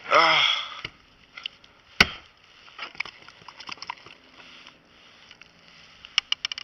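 One sharp knock about two seconds in, then scattered light taps and clicks.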